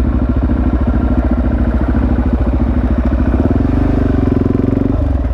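Supermoto motorcycle engine running at low revs, with an even pulsing beat; the revs rise slightly about three seconds in and drop back near the end.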